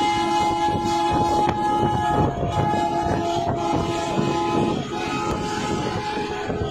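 Truck air horn sounding in long held blasts, several tones at once, with short breaks between them. Engine and wind rumble from the moving trucks lies underneath.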